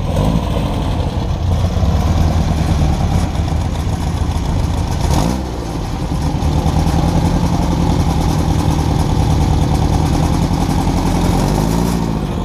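Car engines running loud and close, revving briefly with a rise and fall in pitch about five seconds in and again near the end.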